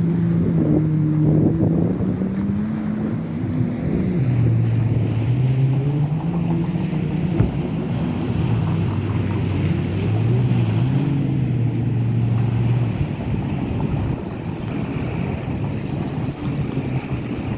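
Jet ski engine running steadily, its pitch falling and rising several times as the throttle changes, with wind noise on the microphone.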